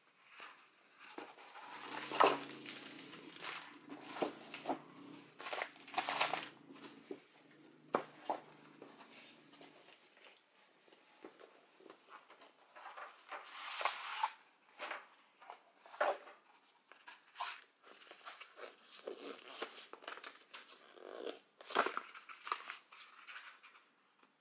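Rustling and crinkling of paper as a rolled diamond-painting canvas is unwrapped from its protective paper sheet and flattened by hand, in irregular bursts, with stiff printed sheets handled near the end.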